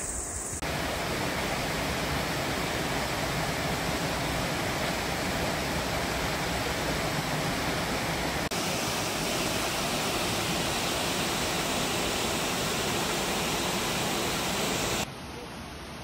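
Rushing water of a mountain stream and waterfalls in a gorge, a loud, steady wash of noise. It starts suddenly under a second in, dips briefly just past halfway, and cuts off about a second before the end.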